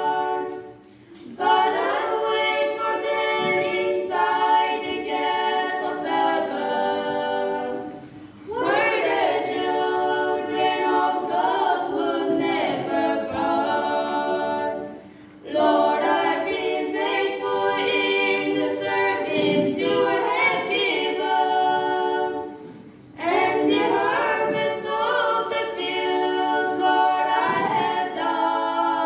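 A trio of girls singing a cappella into handheld microphones, in long phrases of about seven seconds with short breaths between them.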